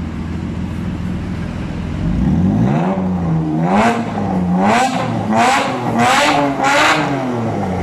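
Engine of a Lamborghini Aventador replica car idling, then revved from about two seconds in: its pitch climbs and swings up and down, with about five sharp blips of the throttle in quick succession before it drops back near the end.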